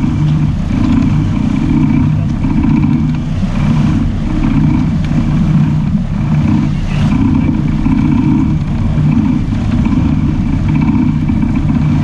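Sport-fishing boat's engine running steadily, a continuous low drone with a faint higher hum above it.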